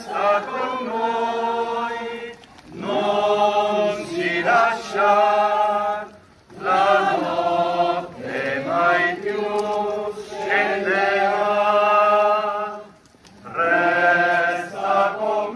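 A procession crowd singing a church hymn together in unison, in sustained phrases of a few seconds with short pauses for breath between them.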